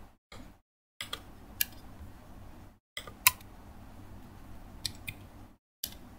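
Scattered laptop keyboard and mouse clicks, a handful of sharp irregular taps over a faint low hum. The background cuts out to dead silence several times.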